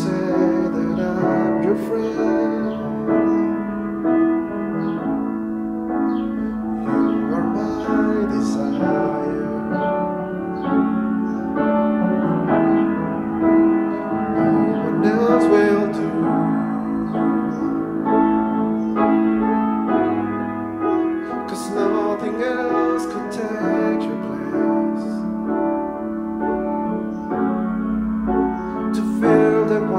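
Grand piano playing slow, held chords, with a man singing a slow worship song over it in places.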